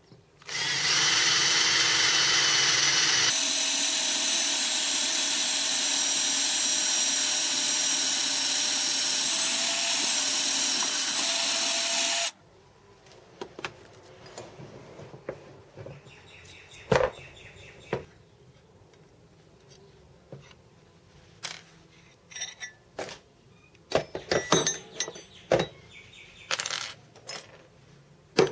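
Electric drill running steadily for about eleven seconds while drilling a hole for a tapped screw, its tone changing once about three seconds in, then cutting off suddenly. Scattered sharp clicks and knocks of metal tools being handled follow.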